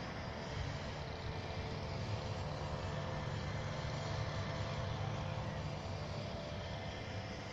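Steady low rumble of city road traffic, with a few faint steady tones above it.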